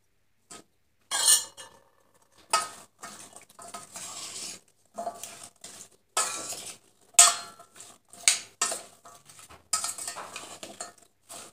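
A metal spoon clinking and scraping against a stainless steel pot as sliced carrots, potatoes and green onion are stirred together, in a run of irregular knocks.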